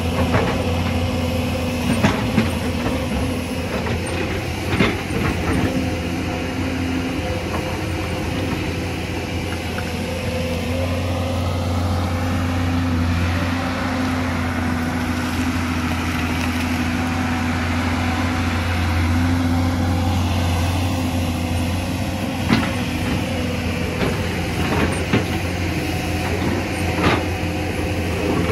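Hyundai 220LC crawler excavator's diesel engine running steadily under working load, a low hum with a higher tone that comes and goes. A few sharp knocks and clanks come from the bucket working in rocky soil.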